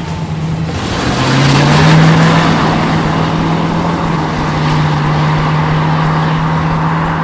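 1972 Ford Mustang engine running with a steady drone; its pitch dips about a second in, then climbs and holds steady.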